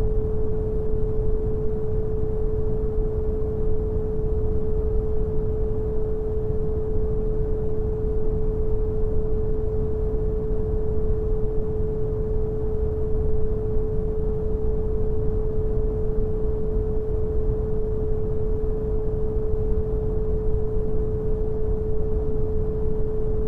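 Brown noise: a deep, steady hiss with most of its weight low down, and a pure 432 Hz sine tone held unchanging over it.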